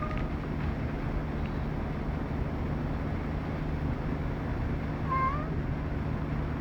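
A cat gives one short, rising meow about five seconds in, over a steady low engine rumble.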